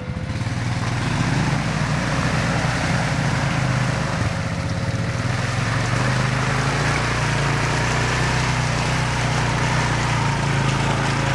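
Garden tractor engine running steadily under load, a low steady hum with a wash of noise over it.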